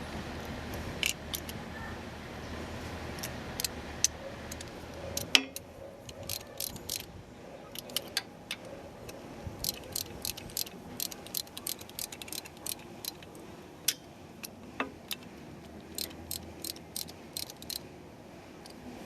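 Irregular light metallic clicks and clinks, several a second at times, from small tools or parts being handled. A low steady hum underlies the first five seconds and drops away there.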